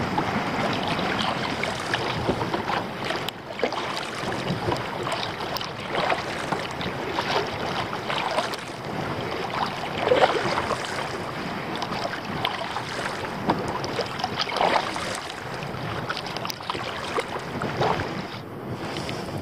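Kayak paddle strokes splashing in choppy water every couple of seconds, over steady wind noise on the microphone.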